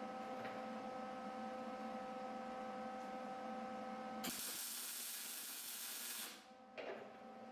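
A steady hum with a few fixed tones, then about four seconds in an abrupt, loud hiss of pressurised gas from a nozzle, lasting about two seconds before it dies away.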